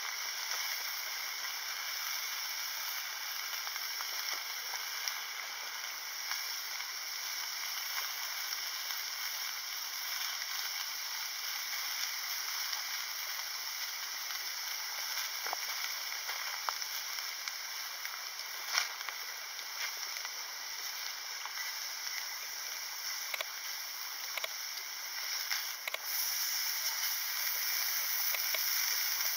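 Beef slices sizzling in a small frying pan over an Iwatani Junior Compact butane single burner: a steady hiss with scattered pops of spitting fat, a little louder near the end.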